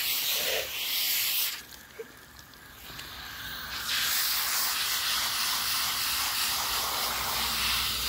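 Garden hose spray nozzle hissing as it sprays water onto a dog's coat. The spray stops about a second and a half in and starts again about two seconds later.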